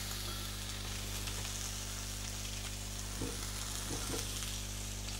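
Pork roast and onion pieces sizzling steadily in hot oil in a frying pan, with a couple of soft knocks about three and four seconds in as onion pieces are dropped into the pan.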